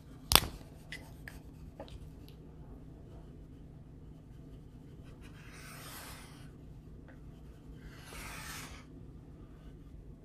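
Colored pencil scratching across paper as it shades, in two scratchy bursts of about a second each in the second half, after a single sharp click and a few light ticks near the start.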